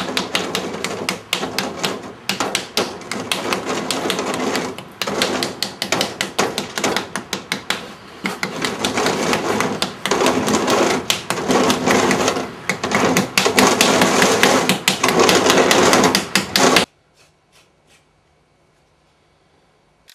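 Rapid, dense clicking and tapping, many sharp strikes a second, over a low steady hum; it cuts off suddenly near the end.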